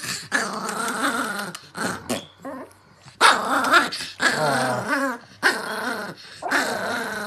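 Chihuahua growling and snarling in a string of short, wavering bouts with brief breaks between them, an angry warning.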